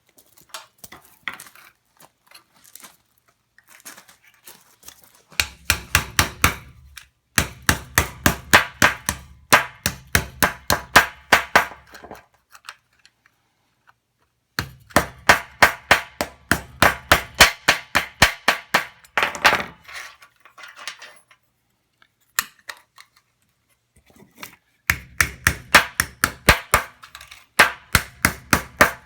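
Hammer striking cold sheet steel in fast, steady runs of several blows a second, broken by short pauses, while a repoussé lemon shell is worked. A few scattered light taps come first.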